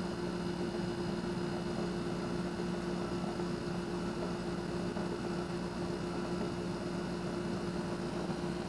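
Steady mechanical hum: a constant low droning tone with a higher steady tone over an even hiss.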